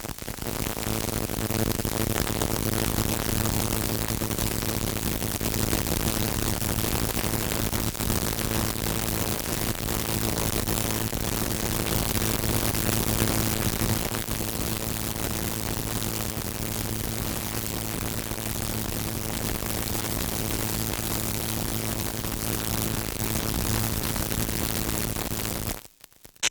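Electric buzzer sounding continuously, a harsh, noisy buzz over a low, steady hum that holds unchanged for most of half a minute and then cuts off near the end. A short separate burst of sound follows right at the end.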